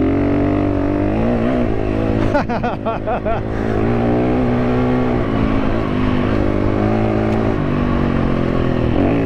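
KTM 350 EXC-F's single-cylinder four-stroke engine pulling under riding load. The pitch wavers up and down quickly with the throttle about two to three seconds in, and climbs again near the end.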